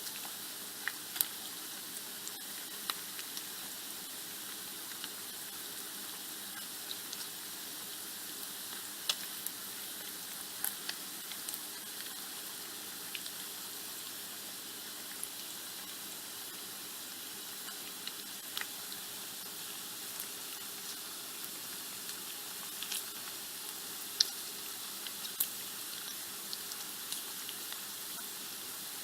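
Bacon frying in a pan: a steady high sizzle with sharp, irregular pops and crackles of spitting fat.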